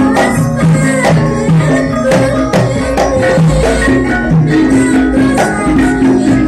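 Loud traditional-style music with a steady beat of drums and percussion under held melodic notes.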